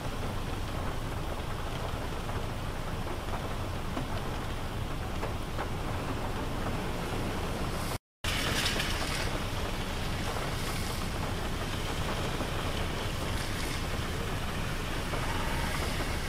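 Strong wind blowing steadily, with a low rumble of wind on the microphone and the rush of surf and rain behind it. The sound cuts out completely for a moment about halfway through.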